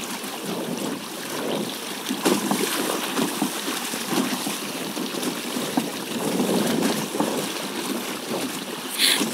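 Water rushing and splashing along the hull of a Hobie Tandem Island sailing kayak moving under sail through choppy sea, with a brief sharper hiss near the end.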